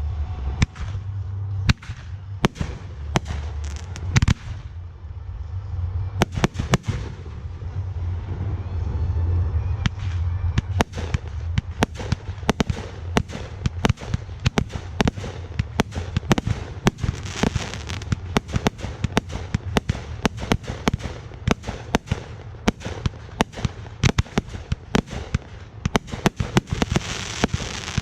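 Aerial fireworks display: shells bursting in a rapid series of sharp bangs, coming faster and denser after about ten seconds.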